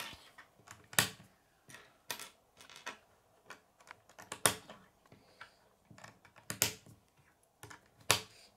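K'nex plastic connectors and rods clicking as they are snapped together and set down on a wooden tabletop. The clicks are irregular, about five sharp ones a second or two apart among many fainter ones.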